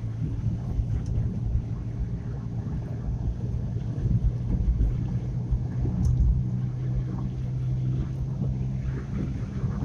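Car engine running at a steady note with low road and tyre rumble, heard from inside the cabin while driving.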